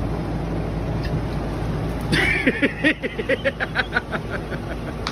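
Steady low rumble like a moving car's cabin. About two seconds in, a rising pitched sweep is followed by a rapid series of short pitched pulses, about four a second.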